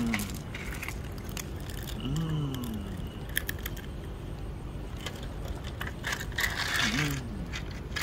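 Loose gravel rattling and scraping, with scattered sharp clicks, as plastic toy construction vehicles are pushed into a pile of crushed stone; the densest rattle comes about seven seconds in. Twice, about two and seven seconds in, a short low sound rises and falls in pitch.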